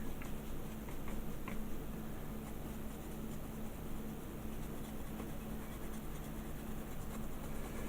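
Paintbrush dry-brushing grey paint over the rough, textured surface of a model diorama base: light scratching of the bristles with small scattered ticks, over a steady low hum.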